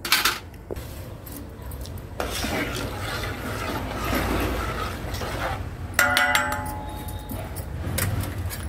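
Metal utensils clinking against a metal cooking pot, with a sharp click near the start, a ringing clink about six seconds in, and a few more clicks near the end. A soft rushing noise runs through the middle.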